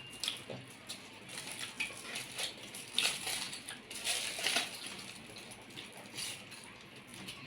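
People eating chicken rolls: irregular chewing and small crackling handling noises, busiest about three to four and a half seconds in.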